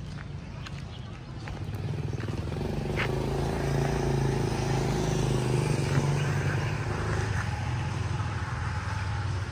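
Motorbike engine running close by, getting louder about two seconds in and then holding a steady low hum.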